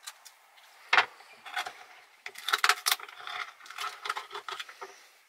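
A knife working an abalone out of its shell: a sharp click about a second in, then quick runs of scraping and clicking of the blade against the hard shell.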